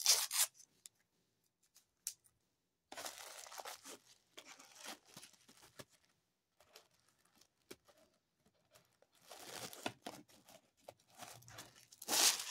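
Tissue paper rustling, crinkling and tearing in several short bursts with quiet gaps, as a wrapped item is unwrapped by hand.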